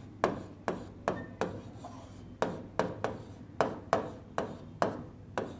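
Marker pen writing on a board: a run of short strokes, about two a second, with a brief pause about a second and a half in.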